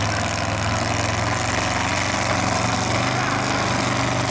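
Demolition derby Cadillac's engine running through open upright exhaust stacks at low speed: a steady low engine drone under a noisy haze.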